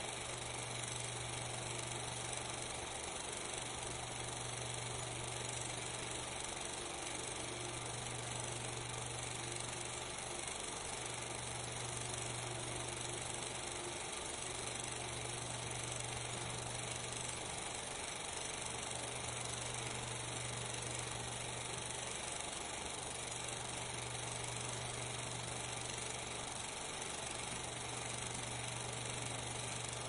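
Steady hiss with a low hum underneath that fades out briefly about every four seconds; no other sound.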